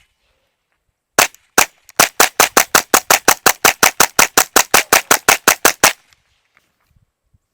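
A magazine-fed gun fired in rapid succession: two single shots, then a fast even string of about two dozen, roughly six a second, that stops about six seconds in. It cycles properly now that the charging handle has been slapped forward.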